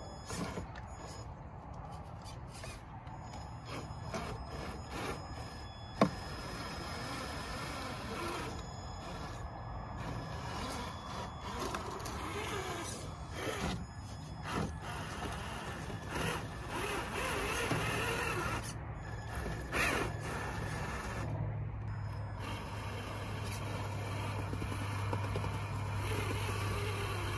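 Traxxas TRX-4 Bronco RC crawler's electric motor and drivetrain whirring as it crawls over rocks, with its tires and chassis scraping on the stone. A single sharp knock about six seconds in, and a steadier low hum in the second half.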